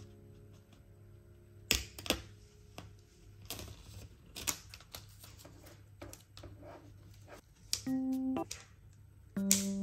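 Small scissors snipping at the tag on a plastic foldable storage box and the plastic being handled: a few sharp separate clicks, the loudest two about 1.7 and 2 seconds in. Near the end come two short, steady, buzzy pitched tones.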